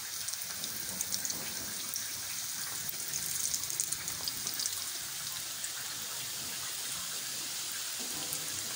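Egg rolls sizzling as they shallow-fry in hot oil in a pan on low heat: a steady hiss with fine crackling. The crackle grows busier for a moment about three to four seconds in, as another roll is laid into the oil.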